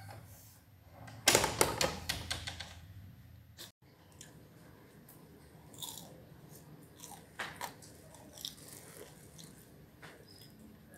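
A cat crunching and chewing dry food, with a burst of rapid crunches about a second in, then scattered fainter crunches after a brief break.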